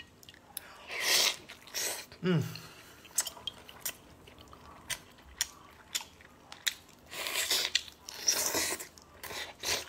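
Close-up eating sounds of a man biting and chewing a soft braised leg of meat in chili oil: wet chewing and lip smacking with scattered small clicks. There are louder slurping, sucking bursts about a second in and again from about seven to nine seconds in, and a brief hummed 'mm' about two seconds in.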